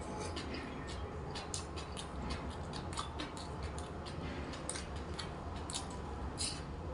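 Eating sounds close to the microphone: irregular small clicks and crunches of chewing and handling food, over a low steady hum.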